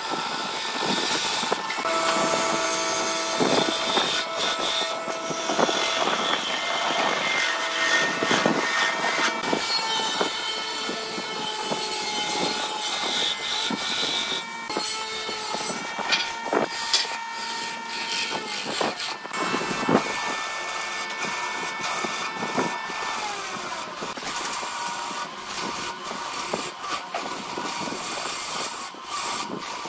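Wood lathe running while a hand-held gouge cuts a spinning wooden blank: a steady scraping hiss of the cut with held whining tones that change pitch every few seconds, and many sharp ticks.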